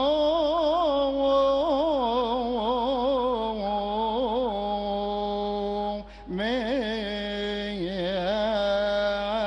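A solo male voice chants a slow, ornamented Coptic liturgical melody. It holds long notes with wavering turns and breaks off briefly for breath about six seconds in.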